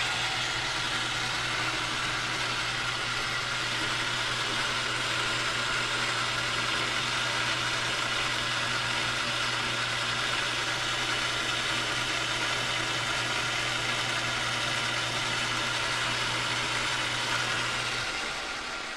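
South Bend metal lathe running under power while facing the end of a steel bar: a steady motor hum with cutting hiss. The hum stops and the sound fades near the end as the lathe winds down.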